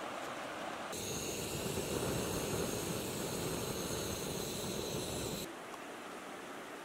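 Steady river water noise, then about a second in a louder spell of a charcoal and wood fire crackling and hissing up close, which cuts off suddenly near the end, leaving a quieter outdoor background.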